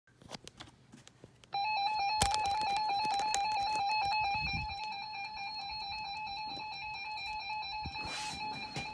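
Weather radio broadcasting a steady electronic alert tone that starts abruptly about a second and a half in, after a few faint clicks of static. A short burst of static hiss comes near the end.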